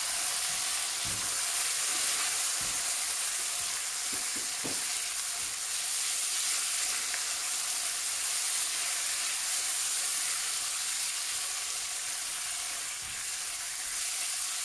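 Onion, capsicum and tomato pieces sizzling in hot oil in a non-stick wok as they are stirred with a spatula. A steady high hiss runs throughout, with a few soft knocks from the spatula against the pan.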